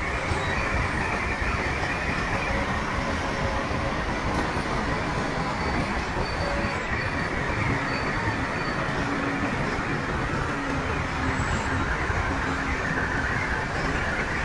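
Shantui crawler bulldozer at work: diesel engine and steel tracks making a steady, unbroken mechanical noise.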